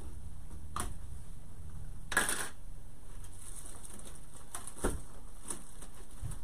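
Hands working wire into a grapevine wreath: scattered light clicks and crackles of vine and wire, with a short, louder rustle about two seconds in.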